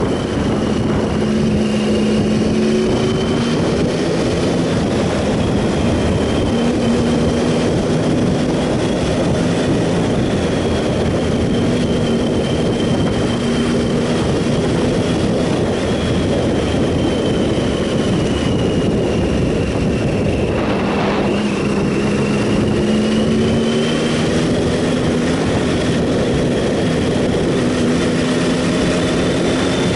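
Triumph Sprint ST 1050's three-cylinder engine running at road speed under a heavy, steady rush of wind and road noise. The engine note drifts gently up and down with the throttle, a thin high whine sits above it, and there is a brief swell about two-thirds of the way through.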